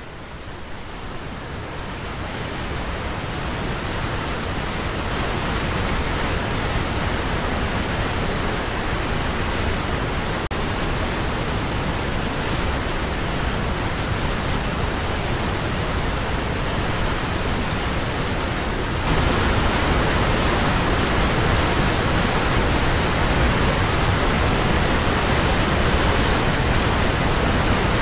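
Steady rushing of a waterfall, an even hiss-like noise of falling water with no distinct splashes. It fades in over the first few seconds and gets louder about two-thirds of the way through.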